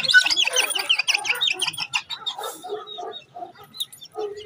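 Small birds chirping: a fast run of repeated high chirps, about eight a second, through the first two seconds, then scattered single calls, over lower short notes repeated throughout.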